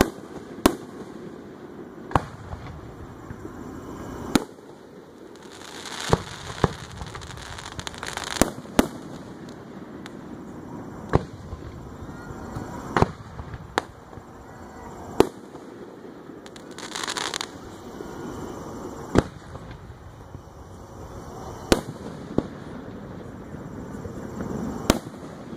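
Aerial firework shells bursting in a series of sharp bangs, one every one to two seconds.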